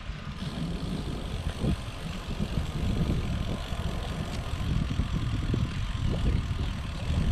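Wind buffeting the microphone of a moving bicycle rider: a low, fluttering rumble that grows gradually louder.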